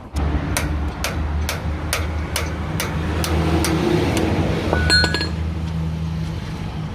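Steel hub parts clinking as they are worked loose and pulled out, with one ringing metallic clink about five seconds in. Under it run a steady low hum and an even ticking about twice a second.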